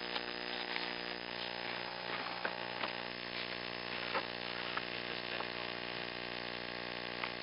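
Steady electrical hum with a stack of even overtones under a hiss, and a few faint clicks, as from a noisy analogue video-link or monitor audio channel.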